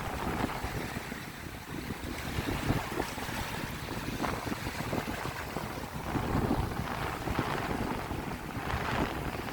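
Small waves lapping on a lake shore, swelling and easing, with wind gusting and buffeting the microphone.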